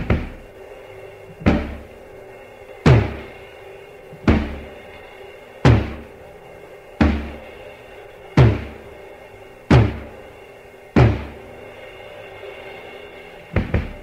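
Instrumental passage of a 1980s Soviet rock recording: heavy drum hits with a ringing tail, about one every second and a half, over a sustained keyboard chord. The beat pauses near the end, then comes back with a quick double hit.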